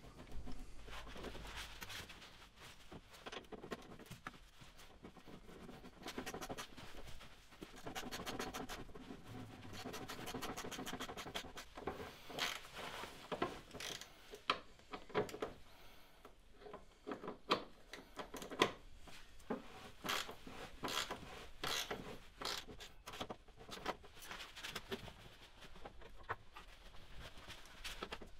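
Faint metal scraping and clicking as a socket on an extension bar is turned by hand, threading the rear axle mounting bolts home. There is a run of sharper, irregular clicks and taps about halfway through.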